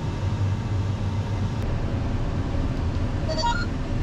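A vehicle engine running with a steady low rumble. A short run of electronic beeps sounds a little over three seconds in.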